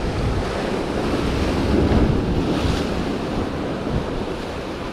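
Ocean surf breaking and washing over jetty rocks, with wind buffeting the microphone; the surge swells to its loudest about two seconds in.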